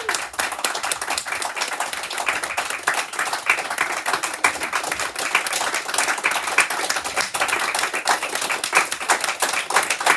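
A group of people clapping: a round of applause, steady and continuous.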